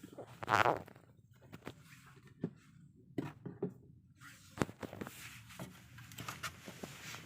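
A sleeping domestic cat snoring: one loud rattling snore about half a second in, then softer breathing and a few small clicks.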